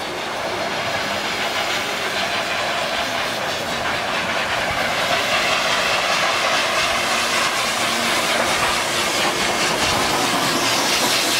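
Livestock blower running, a steady hiss of blown air that grows louder over the first few seconds and then holds.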